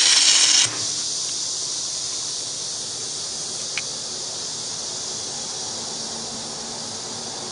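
A drawn-arc stud weld's arc sizzling, cut off sharply well under a second in as the stud plunges into the weld pool. After it a steady high-pitched hiss goes on, with a single click near the middle.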